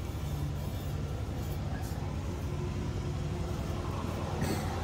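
Steady low mechanical hum, like a running engine, with a faint brief rustle near the end.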